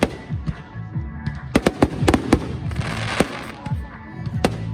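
Fireworks going off in a string of sharp bangs, with a dense burst of crackling about three seconds in, over music accompanying the display.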